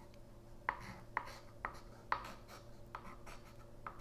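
Chalk writing on a small chalkboard strip: a faint series of short, separate chalk strokes and taps, roughly one every half second, as letters are drawn.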